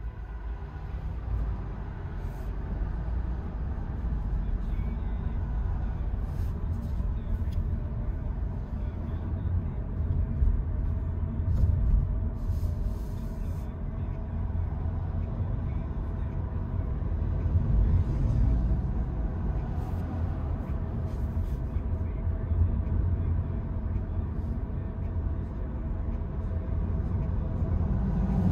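Steady low road rumble of tyres and passing traffic, heard inside the cabin of a 2022 Honda Insight driving with the sunroof open. It swells briefly a few times.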